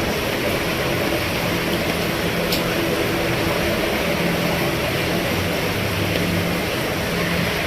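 Steady rain falling on a roof, an even continuous hiss with a faint low steady hum underneath.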